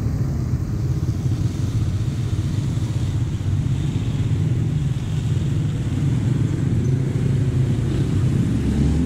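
Garden hose spray nozzle hissing as it waters plants, over a steady low rumble.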